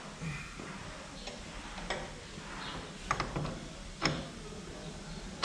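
A few short metallic clicks and clinks as scooter variator parts are handled and fitted onto the drive side of the transmission, with the loudest about four seconds in.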